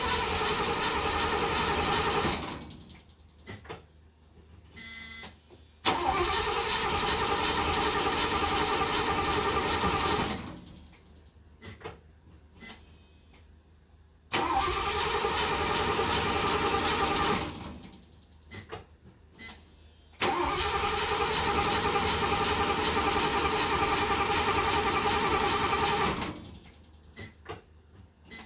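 The Mercedes-Benz 280 SEL 4.5's V8 is turned over by the starter in four spells of a few seconds each, with short pauses between. It keeps cranking without catching, and the owner wonders whether fuel is reaching the front fuel rail.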